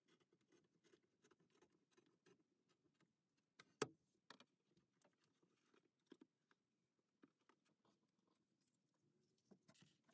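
Near silence with faint, rapid scratching and rubbing from hand work on a plywood cabinet. A sharp knock comes about four seconds in, with two softer knocks shortly after.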